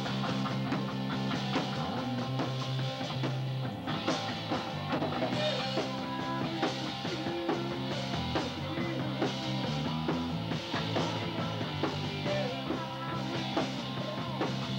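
A rock band playing: electric guitar over held bass notes and a steady drum beat.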